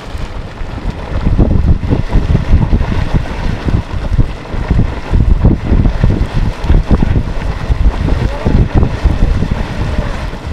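Spasmodic Geyser splashing and hissing as it erupts in small, repeated spurts. Gusts of wind buffeting the microphone are the loudest part, from about a second in.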